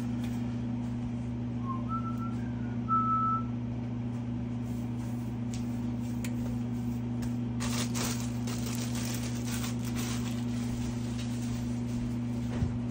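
A steady low hum runs throughout, with a faint sizzle from sandwiches frying in a covered pan that grows brighter between about eight and ten seconds in. Two short high beeps sound about two and three seconds in.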